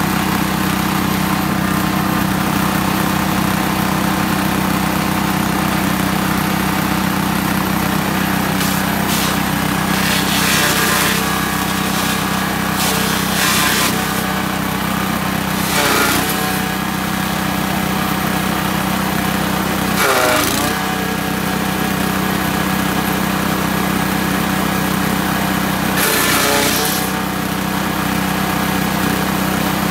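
Small petrol engine driving a YM3000 grass chopper, running steadily. Several bursts of shredding come as leafy branches are fed into the blades, and the engine dips briefly in pitch under each load.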